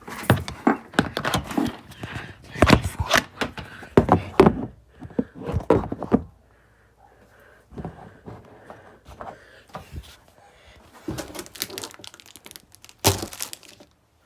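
Knocks, thunks and clatter from handling things in and around the birds' enclosure, thick for the first half, then a quieter stretch, with a few louder knocks again near the end.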